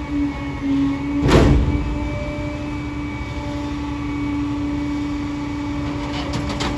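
Rear-loader garbage truck's packer cycling: a steady hydraulic hum with the engine held at raised speed. A single sharp crack about a second in, as the bulky load is crushed.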